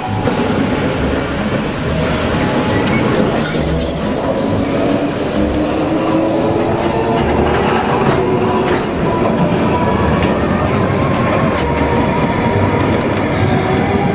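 A rail vehicle running along the track, its wheels squealing and clacking over the rail joints. It is a dubbed sound effect laid over silent tram footage.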